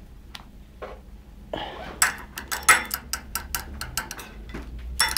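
A spoon clicking and tapping against a small bowl as a parrot eats breakfast with it: a rapid, irregular run of sharp taps from about two seconds in, after a few faint ones.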